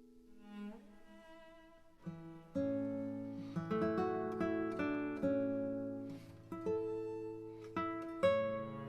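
Background music: a gentle instrumental of plucked strings like guitar. It is soft for the first two seconds, then fuller plucked notes and a steady bass come in.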